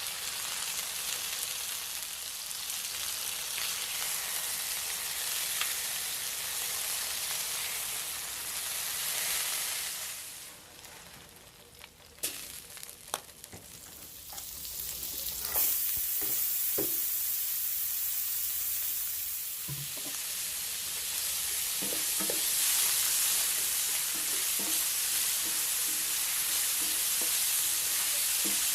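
A steady sizzling hiss that drops away for a few seconds near the middle, with a few clicks and knocks, then returns somewhat louder.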